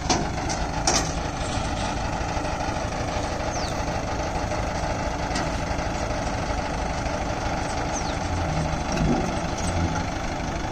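Heavy diesel engine running steadily at low revs, with a couple of sharp clicks in the first second.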